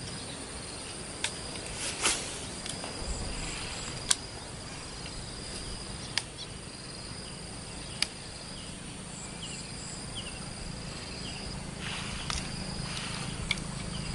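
Insects keep up a steady high-pitched drone, with a few sharp clicks or taps and some brief high chirps on top.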